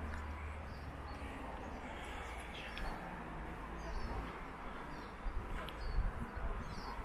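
Outdoor ambience: a steady rushing hiss with faint, scattered bird chirps, and wind buffeting the microphone in low gusts from about five seconds in.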